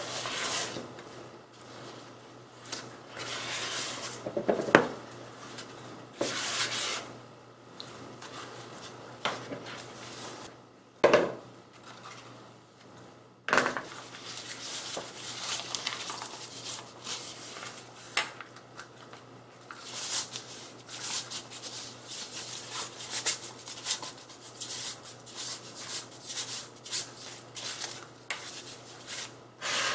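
Silicone spatula scraping thick macaron batter around a plastic bowl and into a piping bag, with a few sharp knocks, then the piping bag crinkling and rustling as it is folded and twisted closed.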